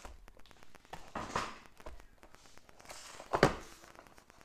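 Cardboard packaging handled with a rustle about a second in, then a sharp knock a little past three seconds in as the box is set down on the table.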